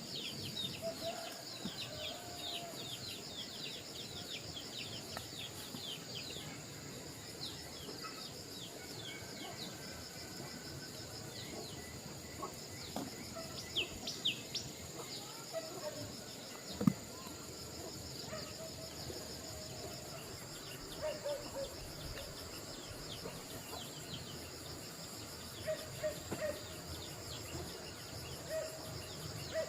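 Outdoor countryside ambience: insects droning steadily at a high pitch while birds chirp, with a rapid run of quick falling chirps at the start and short lower calls now and then. A single sharp knock about halfway through.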